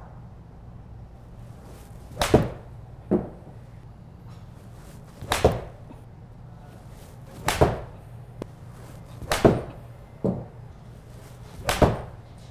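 Titleist 716 AP2 iron (Aldila DVS 65R graphite shaft) striking golf balls off a hitting mat into a simulator screen: five sharp strikes, about two to three seconds apart, several followed by a softer knock.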